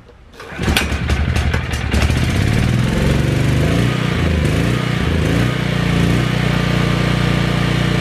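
Gasoline engine of a red 7550 portable generator starting. It catches about half a second in, runs unevenly for the next second or two, then settles into a steady run.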